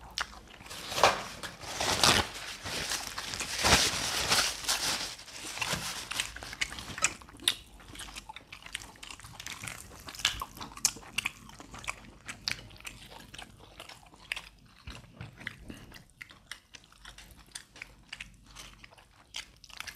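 Close-miked eating of barbecued chicken: biting, chewing and tearing the meat by hand. The bursts are loudest in the first few seconds, then thin out into scattered small clicks.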